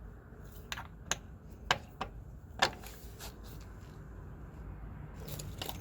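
Several short, sharp, irregular clicks and taps from battery cable terminals and their bolts being handled and fitted onto the truck batteries' positive posts.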